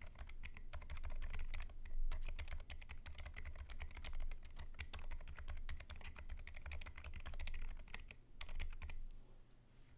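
Steady fast typing on a BM40 40% mechanical keyboard with lubed Zilents V2 silent tactile switches in an aluminium case with foam, giving a stream of keystrokes. The typing stops about nine seconds in.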